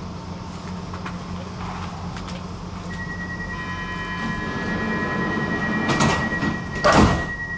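Stockholm metro train at a station: a steady high tone rings over the car's low running hum, and near the end the sliding doors thud twice, about a second apart, the second thud the loudest.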